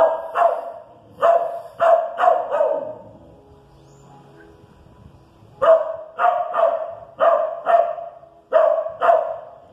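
Dogs barking in two volleys of short, rapid barks, with a pause of about three seconds between them.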